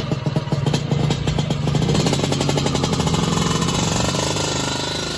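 Vintage Vespa scooter's two-stroke single-cylinder engine running with a fast pulsing beat, revved up about two seconds in, then growing fainter near the end as the scooter pulls away.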